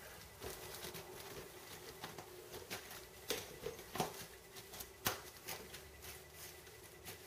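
Kittens scampering and pawing at pee pads and bedding: scattered rustling and scrabbling, with a few sharper knocks, the loudest about four and five seconds in.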